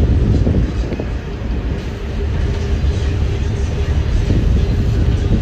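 Passenger ferry under way: a steady low rumble of the engine with wind and water noise, and a faint steady hum.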